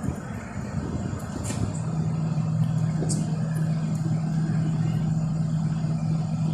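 A steady low machine hum sets in just under two seconds in and runs on evenly, with a few light clicks over it.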